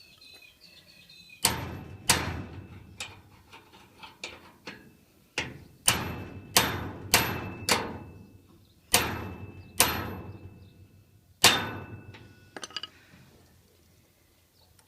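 A seized Master Lock padlock being struck hard about a dozen times at uneven intervals, each blow a sharp metallic knock with a short ring, as the stuck lock is worked loose.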